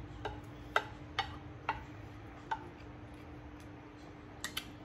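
A person eating: a handful of soft, irregular clicks from chewing and a wooden spoon, over a faint steady hum.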